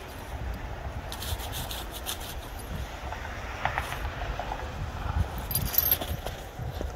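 A dog nosing and digging in crusty snow, with the snow crunching and scraping and his metal collar tags jingling in short clusters about a second in and again near the end, over a steady low rumble.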